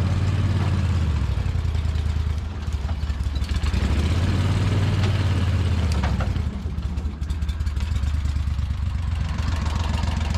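Prodrive surface-drive mud motor running under power as the boat pushes into thick brush. Its revs drop and pick up again a couple of times, with branches scraping along the boat.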